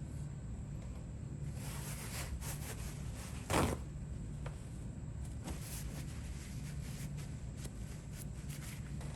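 Light scattered clicks and one louder metallic clack about three and a half seconds in, from small steel ratchet parts being handled and fitted during reassembly, over a steady low hum.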